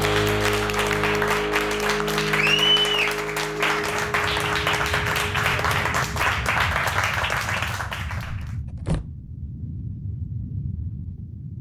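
The last chord of a hard-rock band's electric guitar and bass rings out and fades about four seconds in, under a crowd clapping and cheering, with one whistle near the three-second mark. The applause carries on, then cuts off suddenly a little past eight seconds. A single sharp knock follows, then a low rumble.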